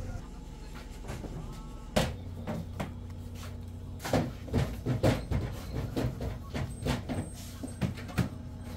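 Plastic squeeze bottle squirting ketchup in a quick run of short squirts over a steady low hum, with one sharp click about two seconds in.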